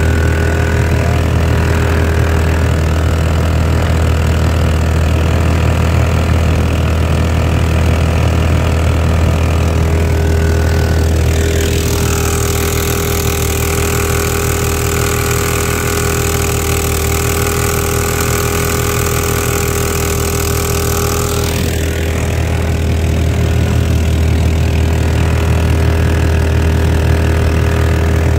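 Harbor Freight 459cc single-cylinder gas engine running steadily at speed, pushing a jon boat across open water. For about ten seconds in the middle, the hiss of the boat's wake and spray rises alongside the engine.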